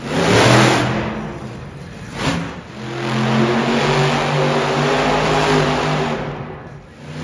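Monster truck engine revving hard: a sharp rev right at the start that fades, a short blip about two seconds in, then a sustained high-revving pull lasting about four seconds that falls away near the end.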